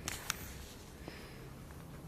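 Two faint clicks close together, then low, steady background noise.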